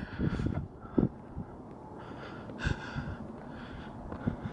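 A person breathing close to the microphone, two audible breaths, over a low rumble of wind on the microphone with a few soft handling bumps.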